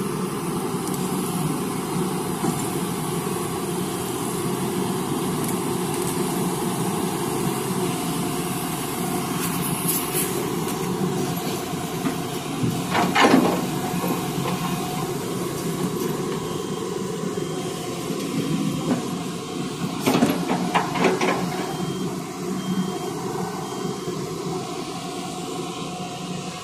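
Hyundai Robex 215 hydraulic excavator's diesel engine running steadily under load while it digs and swings, with a few sharp knocks, the loudest about halfway through and again about three quarters through.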